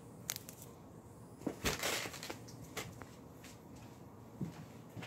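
Grocery packages being handled and set down: a few light clicks and knocks, with a brief rustle of plastic packaging about one and a half seconds in.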